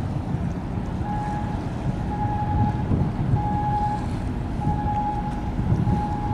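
Wind buffeting the microphone over a low rumble of harbour and boat noise. From about a second in, a high electronic warning beep repeats about every 1.2 seconds, each beep about half a second long.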